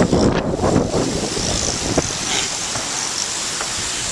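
Strong gusty wind buffeting the microphone in a steady, rumbling rush.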